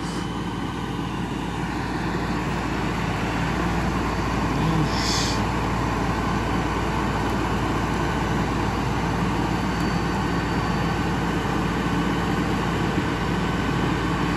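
LS compact tractor's diesel engine running steadily under load as the tractor drags a chained log, growing a little louder about two seconds in. A brief high squeak sounds about five seconds in.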